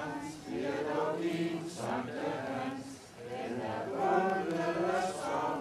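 A crowd of men and women singing a song together in unison, with a short break between phrases about three seconds in.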